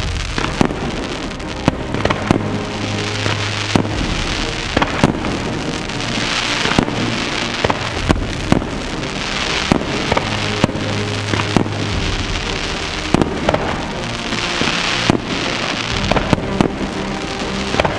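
Fireworks display: sharp bangs of bursting shells and waves of hissing crackle from glittering stars that swell and fade every few seconds, over music with long held bass notes.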